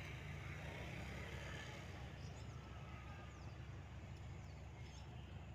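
Harbour background: a steady low mechanical hum with a few faint, short high chirps.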